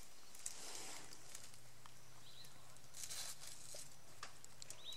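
African elephant giving a low, steady rumble that starts about a second in and lasts some three seconds: a herd communication call, its meaning unknown, from a relaxed cow. Brief rustling of vegetation from the feeding elephants, around three seconds in.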